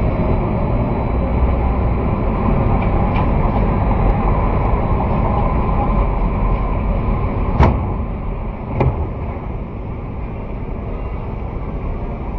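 Steady low rumbling background noise with two sharp knocks about a second apart, roughly two-thirds of the way through, after which the rumble is a little quieter.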